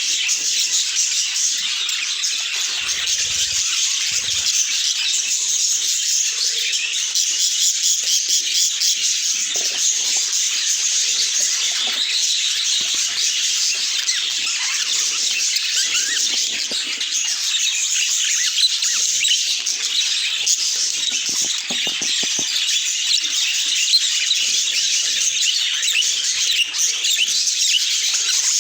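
Budgerigars chattering and warbling without a break, a dense run of rapid high chirps and twitters.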